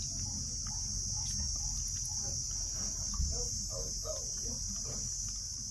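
Steady high-pitched chorus of insects, cricket-like, unbroken throughout. Over it come a few faint short sounds, thickest a few seconds in, as a baby vervet monkey suckles milk from a syringe teat.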